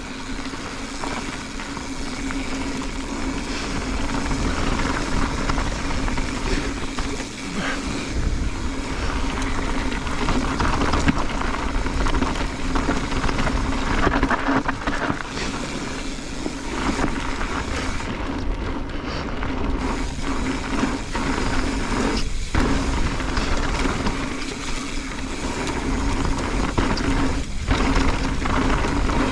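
Mountain bike descending a loose gravel-and-dirt trail: rushing tyre and wind noise on the microphone with a steady low hum, and a few sharp knocks as the bike hits bumps.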